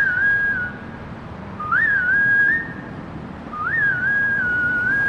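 Whistled melody in a pop song's intro, sped up and pitched up in a nightcore edit: three short phrases about two seconds apart, each jumping up and settling on a held note, the last one longer, over a faint low backing.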